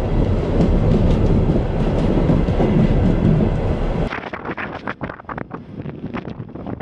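Armored train rolling along the track close by: a loud, dense rumble and rattle of wagons and wheels on the rails. About four seconds in it stops abruptly, giving way to quieter, irregular sharp knocks and clicks.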